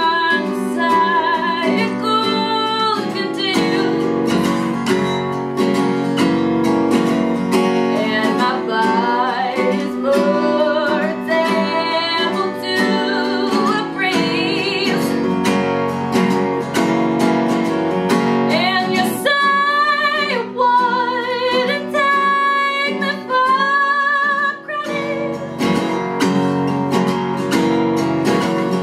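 A woman singing a slow-moving melody while strumming chords with a pick on a Takamine steel-string acoustic guitar. The voice is strongest and highest in the last third.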